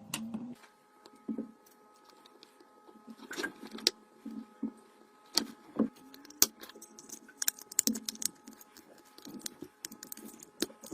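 Irregular light clicks, taps and clinks of small hard objects being handled, over a faint steady tone.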